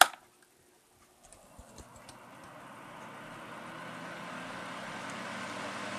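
Holmes Blizzard HAOF90 9-inch table fan switched on at its low speed without oscillation, spinning up: after a few faint ticks about a second in, the rush of its blades and motor rises steadily. It is a loud fan even on low.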